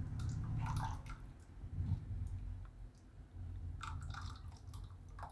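Thin, hot wheat-flour raab poured from a steel ladle into a ceramic bowl: soft wet splashing and dripping, with a few light clicks of the ladle, over a low steady hum.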